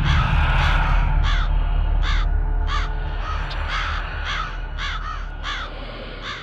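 A crow cawing over and over, about one caw every three-quarters of a second, over a deep rumble that slowly fades and stops right at the end.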